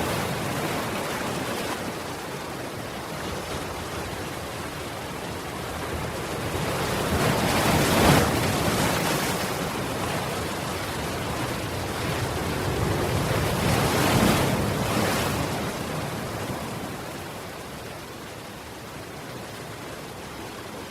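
Sea waves washing onto a stony shore: an even rushing surf that swells twice, peaking about 8 seconds in and again about 14 seconds in, then eases off.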